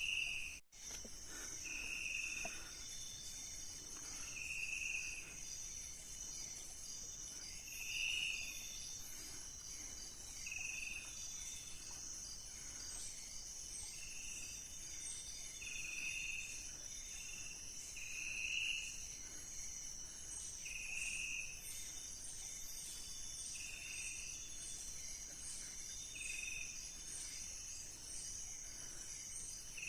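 Night insect chorus in tropical forest: a steady high-pitched drone, with a shorter call repeating about every two to three seconds, around a dozen times. Just under a second in, the sound drops out for an instant.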